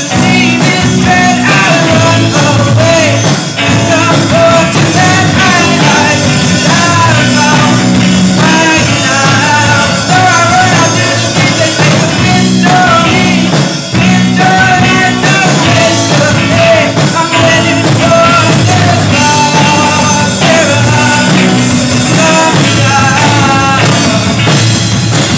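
Loud pop-rock music, a stretch of the song without recognisable sung words: a melodic lead line over a steady full-band backing.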